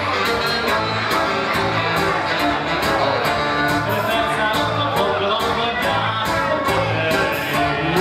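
Live dance music from a band on keyboards and electric guitar, held notes over a steady, quick beat.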